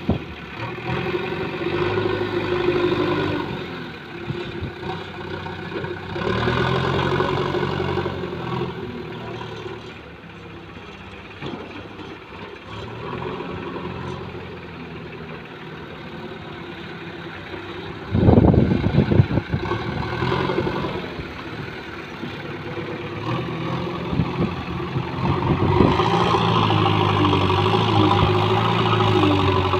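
JCB backhoe loader's diesel engine running and revving up and down as its front loader digs and lifts soil. About two-thirds of the way through there is a loud burst of noise lasting about two seconds.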